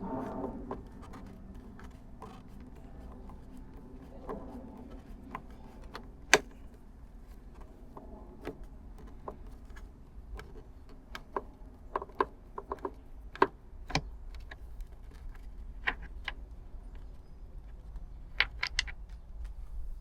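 Irregular sharp clicks and light knocks of hand work on car trim, with small screws and parts being handled, over a low steady hum.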